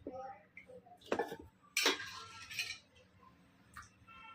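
Metal spoon clinking and scraping against plates and serving dishes, about four separate strikes with a short ring after each.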